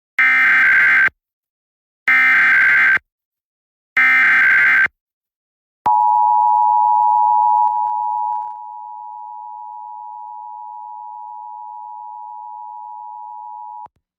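Emergency Alert System SAME header, three identical bursts of shrill digital data tones about a second each, then the EAS two-tone attention signal (853 and 960 Hz) opening a statewide Required Monthly Test. The attention tone is loud for about two seconds, drops to a lower level and holds steady for about six more seconds, then cuts off.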